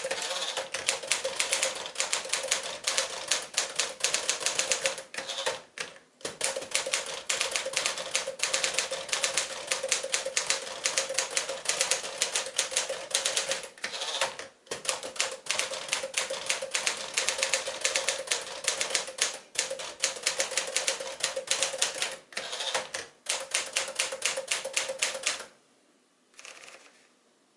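A freshly restored 1957 Smith-Corona Sterling manual portable typewriter being typed on quickly and steadily: a dense run of key strikes with a few brief pauses. The typing stops about two seconds before the end.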